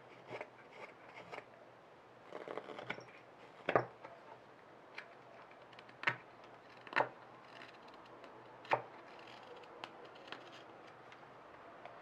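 Carving knife slicing dried olivewood in short paring cuts, irregularly spaced, the sharpest about four seconds in. These are final shaping cuts on the seasoned spoon.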